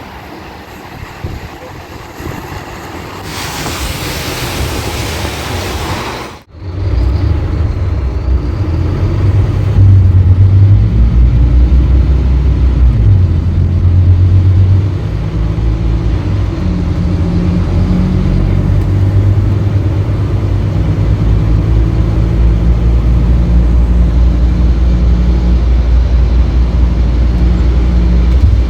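Scania K310UB bus's five-cylinder diesel engine pulling under load, its note shifting up and down several times. It follows a loud hiss of air about three to six seconds in that cuts off suddenly.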